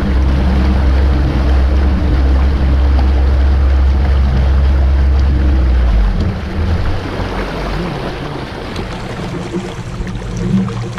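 Bass boat's Mercury Pro XS four-stroke outboard running under way, with water and wind noise over a steady low engine hum. About six seconds in the throttle comes back and the engine noise drops off as the boat slows.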